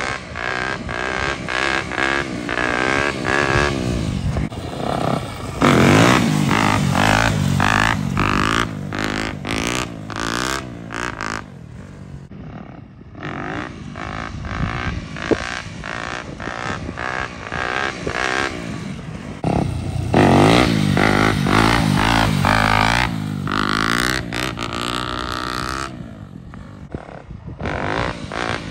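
Motorcycle engine revving up and down as the rider works the throttle to hold wheelies. It grows loud about six seconds in and again about twenty seconds in, and drops away in between.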